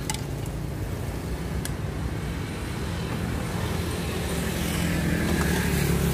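A motor vehicle's engine running close by, a low steady hum that grows louder over the last two seconds or so, with a couple of faint clicks early on.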